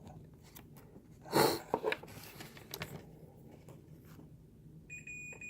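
Small clicks and scrapes of multimeter probes on the circuit board's solder pads, with a short rustle about a second and a half in. Near the end the multimeter's continuity beeper starts a steady high-pitched beep, the sign that the probed pads are connected.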